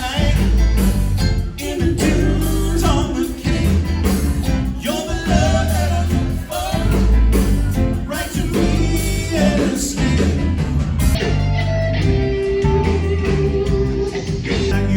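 A live yacht rock band playing: a singer over guitar, bass and a steady drum beat.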